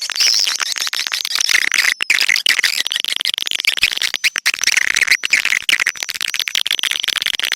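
Swiftlet call lure recording: a dense, continuous chatter of edible-nest swiftlet chirps and clicks, with a buzzing trill coming in twice, about three seconds in and again near the end. It is a calling sound made to draw swiftlets to a nesting house.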